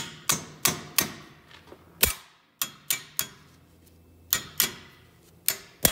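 Hammer driving a new pad-retaining pin into a Bendix air disc brake: about a dozen sharp strikes, coming in short groups of two to four with brief pauses between.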